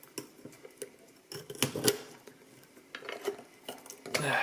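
Metallic clicks and clacks of a Master Lock Pro Series padlock worked by hand, its grimy shackle opened and closed and its core turned, with a cluster of louder clacks about one and a half to two seconds in.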